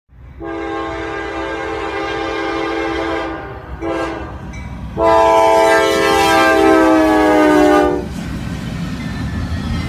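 Disney monorail air horns sounding a chord of several notes: a long blast, a brief toot about four seconds in, then a louder blast of about three seconds that sags slightly in pitch before cutting off, over a steady low rumble.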